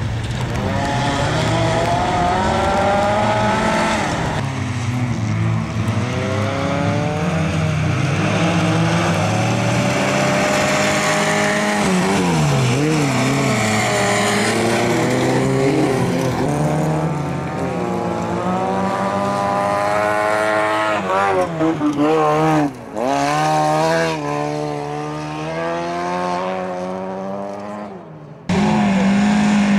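Engines of folkrace cars racing on a dirt track, revving up and down through the gears as they drive and pass. The sound changes abruptly a few times, with brief dropouts near the end.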